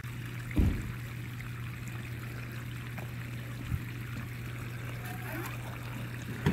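Water trickling and bubbling out of a drain pop-up emitter at the curb, over a steady low hum, with a thump about half a second in.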